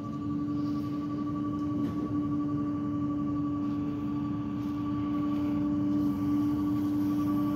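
Engine of a Peterbilt New Way garbage truck running at a steady raised speed, a constant drone with a steady higher whine over it.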